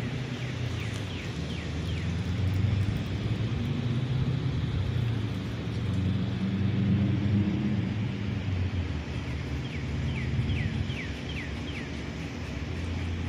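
A steady low machine rumble that wavers slowly. A small bird calls twice, each time in a quick run of five or six falling chirps: once near the start and once about ten seconds in.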